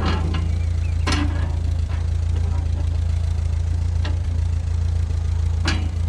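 Tractor engine idling steadily with a low hum, with a few sharp clicks as the hay baler's bale-tension crank is turned by hand to make tighter bales.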